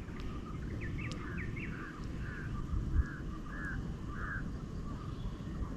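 A bird calling a series of about seven short, evenly spaced notes, with a few quick rising chirps near the start, over a steady low outdoor rumble. A dull thump comes about three seconds in.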